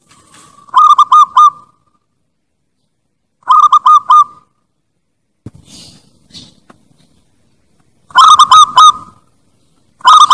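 Lure-call recording of the bird called perkutut bangkok: short bouts of three or four quick, hooked, honking notes, about a second each. The bouts come about a second in, near four seconds, and twice near the end, the last two louder. A softer scratchy sound comes around six seconds.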